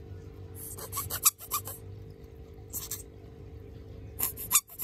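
Green rubber squeaky turtle toy squeezed again and again in short runs. Its squeaker is broken, so each squeeze gives only a very small, hissy puff of air instead of a proper squeak.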